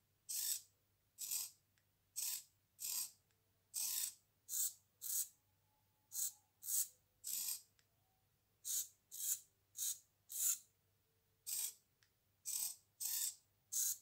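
Micro servo gearmotors whirring in short bursts as a thumb joystick is nudged back and forth. The servo's control electronics are bypassed and its DC motor is driven directly by an H-bridge. Each burst lasts under half a second, they come about one a second, and there are brief pauses between runs.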